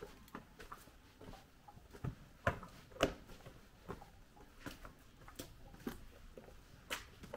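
Footsteps walking at an even pace, a step about every half second, with two louder steps around the middle.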